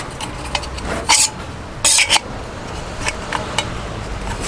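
Titanium cup and metal stove windscreen pot stand clinking and knocking as they are fitted together and handled. There are scattered light clicks, with two louder clatters about one and two seconds in.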